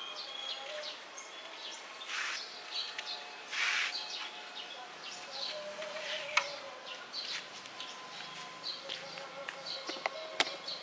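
Small birds chirping again and again, with a couple of brief rustles early on and two sharp wooden knocks, about six and ten seconds in, as the wooden-and-bamboo cage frame is handled and set down.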